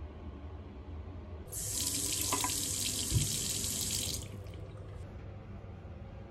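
Water running from a single-lever mixer tap into a ceramic washbasin for about two and a half seconds, then cut off sharply as the lever is closed. A short low thump comes partway through.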